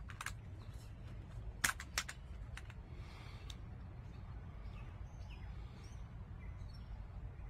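Two sharp metallic clicks about a third of a second apart, a little under two seconds in: the action of a BinTac M50 .50-calibre PCP air pistol being worked to chamber the next slug between shots. Faint outdoor background with a few faint bird chirps.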